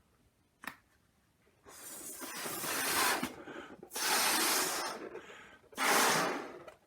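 Air let out of a balloon's neck in three hisses, each about a second or more long, imitating a snake's hiss. A short click comes just before them.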